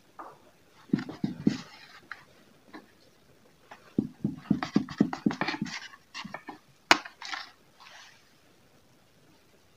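Knife sawing through a slice of soft white bread on a paper plate: two runs of quick back-and-forth strokes, the second longer, followed by a single sharp click.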